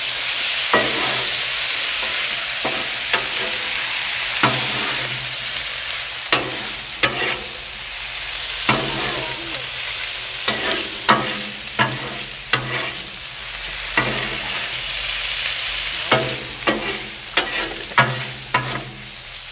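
Potatoes, bacon and egg sizzling on a Blackstone steel griddle, freshly splashed with white vinegar. A metal spatula stirs and scrapes them, with irregular sharp clacks against the griddle top.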